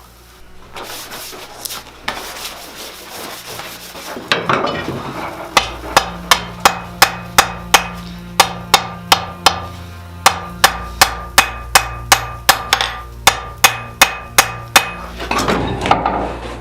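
Forging hammer striking steel on an anvil: a regular run of sharp blows, about three a second in short groups with brief pauses, each one ringing. A rougher scraping noise comes before the hammering starts.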